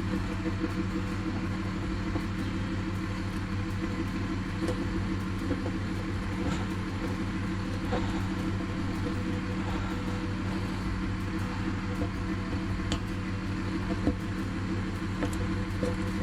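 A steady machine hum, an even low drone that does not change, with a few light clicks and taps now and then.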